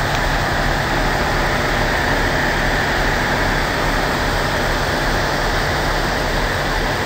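Tenryū Hamanako Railway TH2100 diesel railcar idling at the platform: a steady low engine hum under an even hiss, without change.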